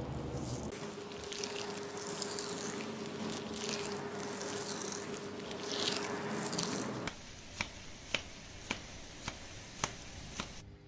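Fingers scrubbing and massaging shampoo-lathered hair, a wet squishing and scratching of foam. After a cut, about six light clicks come at even intervals of about half a second.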